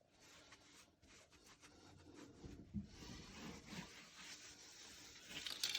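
Faint rubbing and scraping of hands handling parts inside a toilet tank, with a brief louder scrape near the end.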